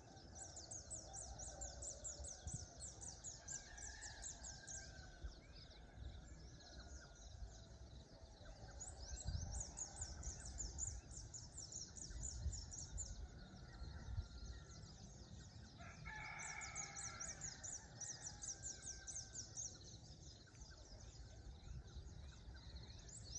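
Rooster crowing faintly, once about sixteen seconds in, over a high, fast pulsing that comes and goes in three long stretches.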